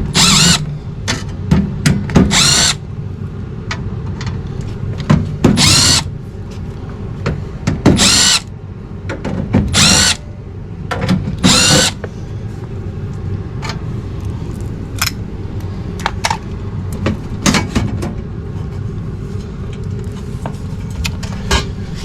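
A cordless drill-driver spinning out the sheet-metal screws of a furnace's burner compartment panel, in about six short whirring bursts that speed up as each one starts, then a few light clicks of handling. A steady low hum runs underneath.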